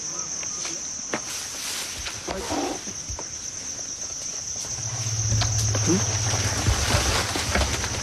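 Crickets or other insects making a steady high-pitched drone. About halfway through, a louder low rumble joins in, with a few short calls.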